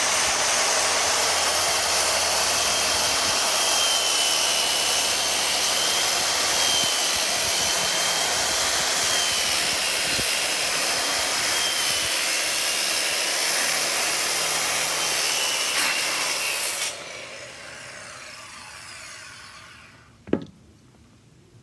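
Circular saw cutting a long strip off a board along a clamped straight-edge guide, running steadily until it is switched off about three-quarters of the way through and winds down over a few seconds. A single sharp knock near the end.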